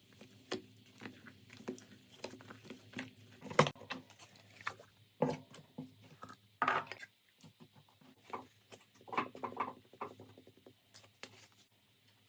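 Slime being squished and poked by hand close to the microphone, making irregular short sticky clicks and pops, the loudest about three and a half seconds in and again near seven seconds.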